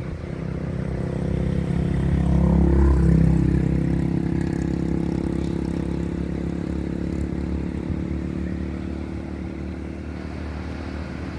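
An engine passing: its steady low hum grows louder to a peak about three seconds in, then slowly fades away.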